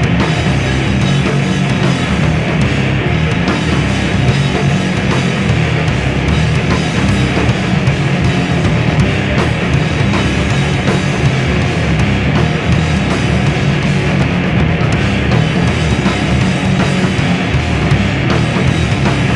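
Punk band playing loud and continuous: electric guitars over a drum kit with cymbals.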